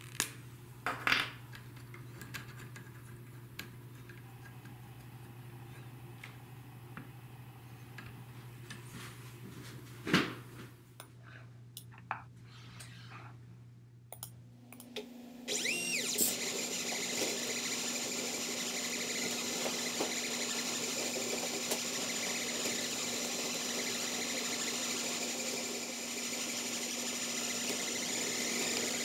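A few sharp clicks over a low hum, then, about halfway through, an AxiDraw pen plotter's stepper motors start and run steadily with a low hum as the pen draws a spiral.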